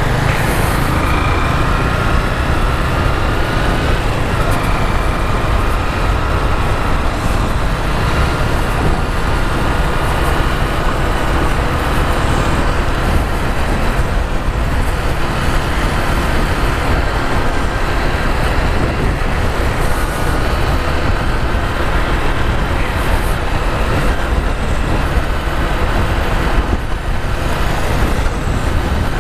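Steady wind rush on the camera microphone of a moving Honda CG 150 Fan motorcycle, with its single-cylinder four-stroke engine running at a steady cruise underneath, amid city traffic.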